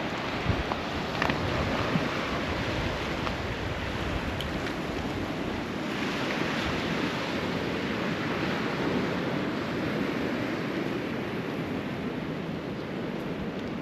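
Sea waves washing onto a rocky shore on an incoming tide, with wind buffeting the microphone. A few short sharp clicks in the first two seconds.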